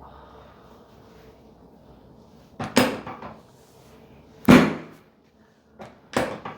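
A series of sharp thumps during a chiropractic adjustment, most likely the adjusting table and thrusts: three loud ones about a second and a half apart, starting nearly three seconds in, with a smaller knock just before the last.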